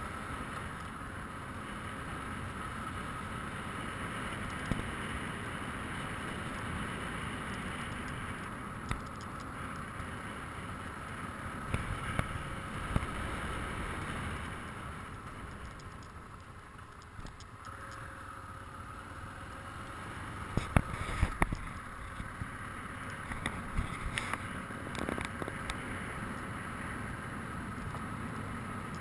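BMW motorcycle riding a rough dirt track: a steady rumble of engine and wind, broken by sharp knocks and rattles from bumps, in clusters about halfway through and again later on. The rumble eases off for a few seconds just after the middle.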